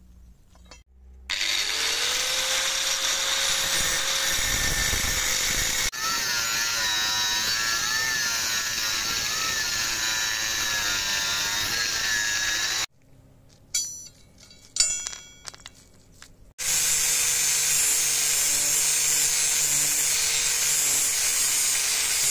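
Electric angle grinder spinning up with a rising whine, then cutting a forged steel blade blank with an abrasive cut-off disc, loud and steady. After a quieter pause with a few sharp clinks of metal, the grinder runs again, grinding the blade's tip.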